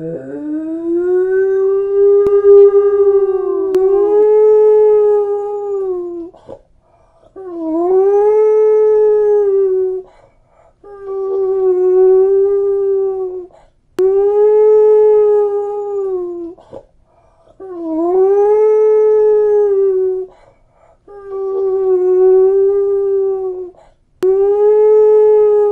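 Cane Corso (Italian Mastiff) howling: about seven long, steady howls in a row, each swooping up quickly at the start and held for around three seconds, with short breaks between them. The first howl is the longest, at about six seconds.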